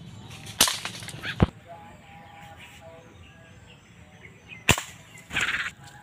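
Three sharp cracks: one about half a second in, another near a second and a half, and a third near the end. A short rustling burst follows the last crack, with a faint hiss of background between them.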